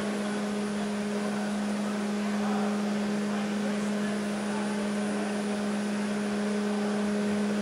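Steady mechanical hum with one constant low tone and faint overtones, unchanging throughout.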